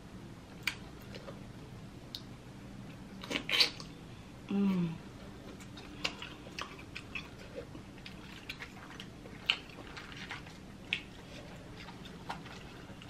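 Boiled crawfish being peeled and eaten close to the microphone: shells cracking and snapping, with sucking and mouth sounds. The loudest moment is a sharp noise about three and a half seconds in, and about a second later comes a short hum that falls in pitch.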